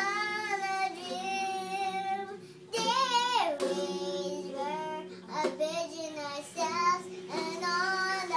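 A young girl singing in long held notes, with a phrase sliding down in pitch about three seconds in.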